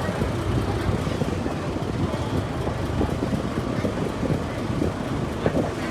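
A steady low engine rumble with faint voices in the background.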